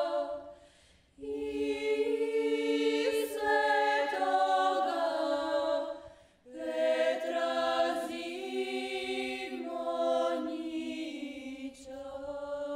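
Small ethno vocal group singing a traditional Herzegovinian folk song a cappella in close harmony. The voices hold long notes in phrases, with breath pauses about a second in and again about six seconds in.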